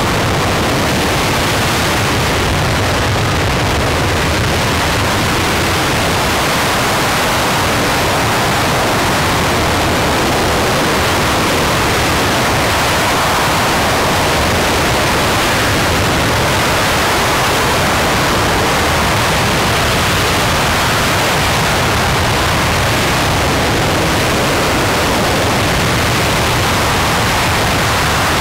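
RS-25 liquid-hydrogen/liquid-oxygen rocket engine firing steadily in a hot-fire test: a loud, even rush of noise that holds level without a break.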